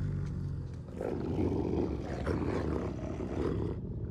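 Wolves growling and snarling low over a deep rumble, film sound design; the growling comes in strongly about a second in.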